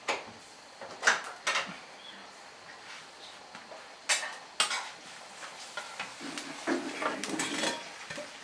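Kitchen pots, dishes and utensils clattering and knocking, a series of sharp metallic clinks and scrapes at irregular intervals, busiest near the end.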